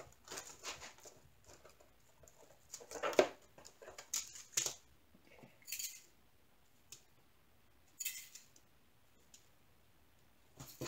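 Small plastic zip bags of diamond-painting drills being handled: short, scattered rustles and clicks, the loudest about three seconds in, with quiet stretches between.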